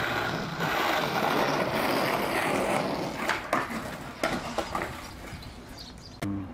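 Skateboard wheels rolling on rough asphalt, then sharp clacks about three seconds in as the board is popped and lands, followed by a few lighter knocks as the riderless board rolls on.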